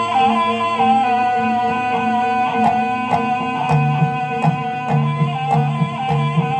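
Music for a Javanese barongan performance: a wavering melodic lead over a steady held drone. Drum strokes come in about two and a half seconds in at roughly two a second, and a low pulsing bass joins a little later.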